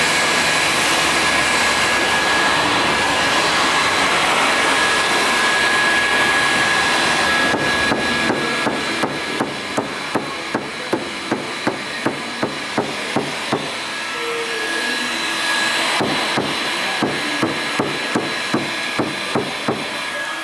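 A steady whirring machine runs for the first several seconds, then a hammer strikes repeatedly at about two blows a second in two runs, with a short pause between them.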